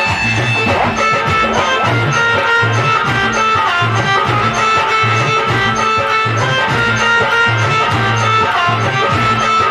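Instrumental music with string instruments and a steady, even bass beat.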